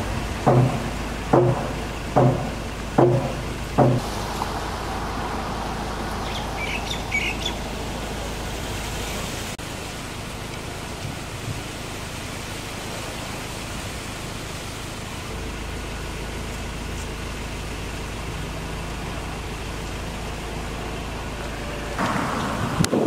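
Steady outdoor background noise with a low hum, tagged as road traffic. For the first four seconds a run of evenly spaced pitched knocks, about one a second, sits over it, and the noise swells briefly near the end.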